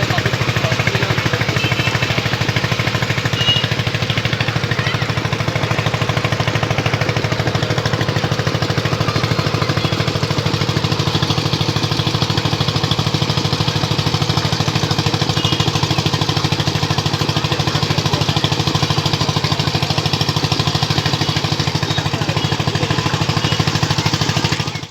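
An engine running steadily at constant speed, with a fast, even chugging.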